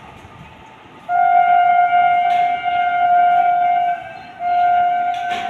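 Locomotive air horn sounding a steady single note, starting about a second in: a long blast of about three seconds, a brief break, then a second blast that trails off near the end.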